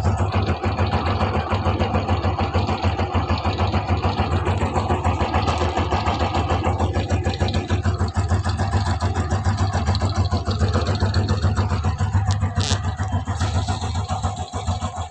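Honda Blade motorcycle's single-cylinder four-stroke engine idling steadily with an even, rapid exhaust pulse.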